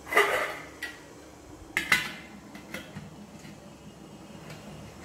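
Stainless-steel idli steamer pot and lid clanking and clinking as the lid is set on, with a ringing clatter at the start, a sharp clank about two seconds in and a few lighter clinks after.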